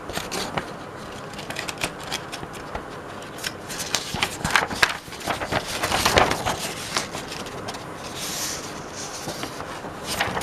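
Pages of a paper instruction booklet being flipped and handled: rustling with many quick, sharp paper clicks, busiest around the middle.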